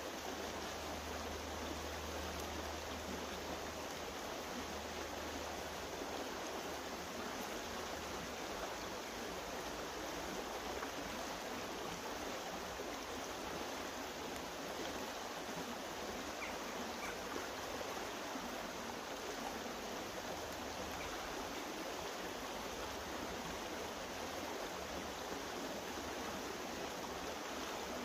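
Steady rush of flowing water from a stream, even and unbroken.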